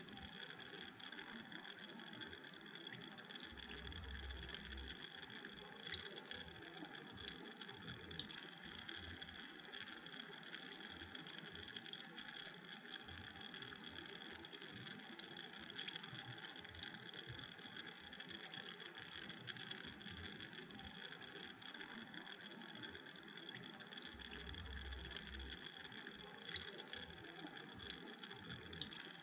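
Carbonated drink fizzing: a steady hiss of tiny bubbles popping, full of fine crackles.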